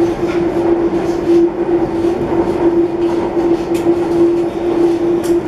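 Delhi Airport Express Line metro train running at speed, heard from inside the carriage: steady rolling noise with a constant low hum, and two faint clicks in the second half.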